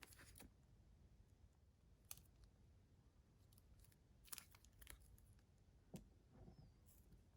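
Near silence broken by a few faint clicks and rustles of a small cardboard phone box being handled.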